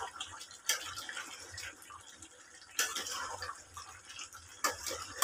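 Spatula stirring chicken in a non-stick kadhai, with three sharp scrapes against the pan about two seconds apart over the soft wet sound of the chicken cooking in its own released juices.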